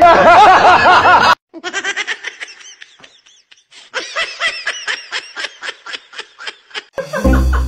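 A dubbed-in laughing sound effect: rapid snickering laughter in short bursts, about five a second, in two runs with a pause between. Before it, a loud warbling sound effect cuts off just over a second in, and music comes in near the end.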